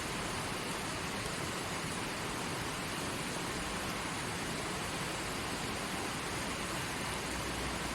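Stream water flowing over rocks with a steady, even rush.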